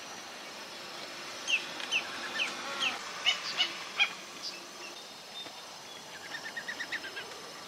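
A flock of flamingos calling: several short, falling, goose-like honks, with a quick run of short chattering notes near the end.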